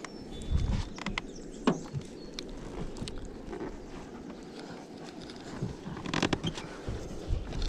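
Scattered knocks and clicks of handling inside a small fishing boat, heavier about half a second in and again around six seconds in, over a steady low background noise.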